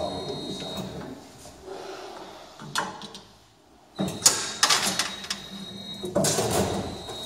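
Kebab skewering machine at work: a series of short mechanical clunks and noisy bursts, with a sharp click, as metal skewers are fed through and loaded with minced meat.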